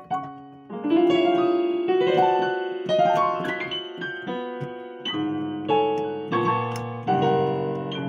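Digital piano played: a held low note under a rising line of notes, then a series of struck chords from about five seconds in.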